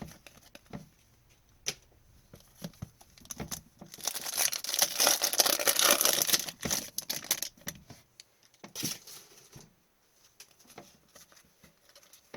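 Foil trading-card pack wrapper being torn open and crinkled: a loud tearing rustle about four seconds in that lasts a few seconds, with a shorter crinkle a little later and light clicks of cards being handled around it.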